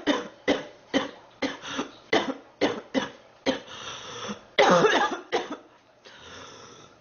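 A girl coughing over and over: short, sharp coughs about two a second, then a louder, longer bout of coughing about two-thirds of the way through, followed by a softer, breathy stretch.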